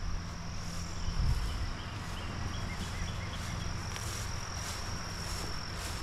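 Insects calling outdoors with a steady high buzz, a few faint chirps, and a low rumble underneath.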